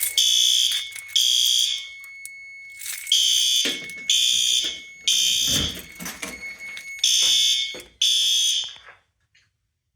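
Fire alarm horn on a Fire-Lite MS-10UD-7 panel's notification circuit sounding in the temporal-3 evacuation pattern: loud, high-pitched blasts in groups of three with a pause between groups. A thin steady high tone runs underneath, and everything cuts off suddenly about nine seconds in when the alarm is silenced.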